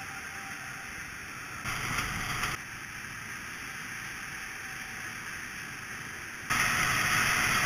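Small go-kart engines running at the track: a steady noisy hum, rising to a louder stretch of about a second near two seconds in and again for the last second or so.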